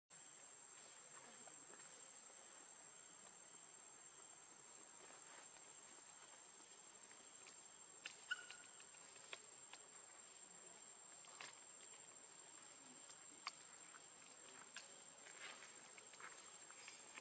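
Faint, steady, high-pitched insect drone over quiet background hiss. There are scattered soft clicks and taps, and a brief high chirp about eight seconds in.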